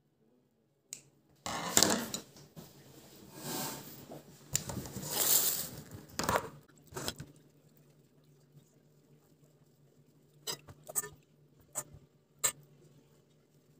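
Plates and metal utensils clattering and scraping on a kitchen counter for several seconds, then a few separate light clicks and taps, over a faint low steady hum.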